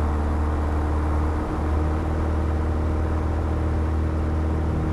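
Piper PA-28-181 Archer II's four-cylinder Lycoming O-360 engine and propeller running steadily at full takeoff power, a constant drone with an even pitch.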